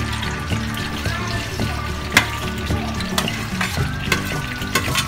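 Sliced hotdogs sizzling as they are spooned into hot cooking oil in a pan, with sharp crackles and the clink of a metal spoon against the pan and bowl.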